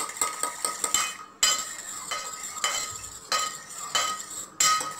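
Fork beating raw eggs in a stainless steel bowl: quick, repeated clinks and scrapes of the metal tines against the ringing bowl, whisking the eggs to a froth. The beating breaks off briefly twice.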